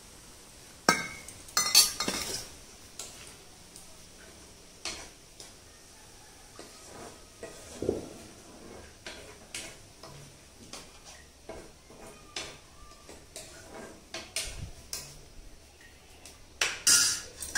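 Metal kitchenware clinking and scraping: a steel bowl and a metal spatula against a kadai. Sharp clanks come about one and two seconds in, lighter taps and scrapes from stirring follow, and there is another loud clatter near the end.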